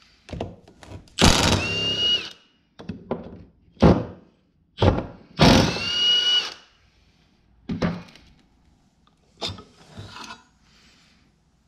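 Cordless impact wrench hammering loose the cylinder 4 connecting-rod cap bolts on a Subaru crankshaft in two bursts, each ending in a brief high whine. Short metallic clicks and clinks follow as the rod cap is worked off.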